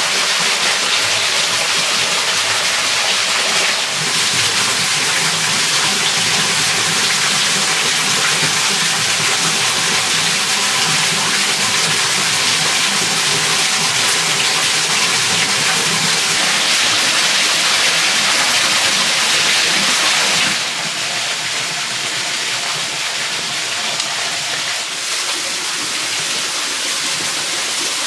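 Steady rush of a small waterfall and stream of water, even and loud. It drops a little in level about twenty seconds in.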